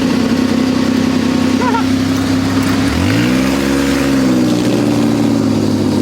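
ATV engine running steadily, then revving up about halfway through and easing back down.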